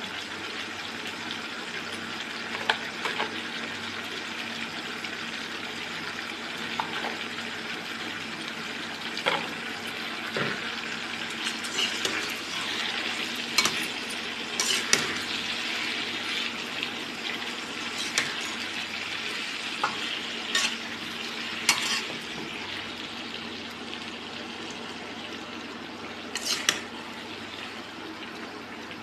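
Potato and cauliflower pieces sizzling as they fry in a kadhai while a perforated metal spatula stirs them, with about nine sharp knocks of the spatula against the pan.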